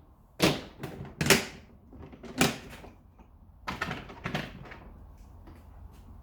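Sharp knocks and clatters of engine parts and covers being handled and set down on a workbench, about seven in the first four and a half seconds, then only a faint low rumble.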